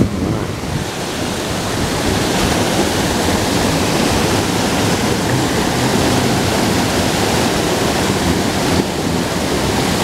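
Steady rushing of a small creek waterfall pouring over a rock ledge into a churning pool, heard close up.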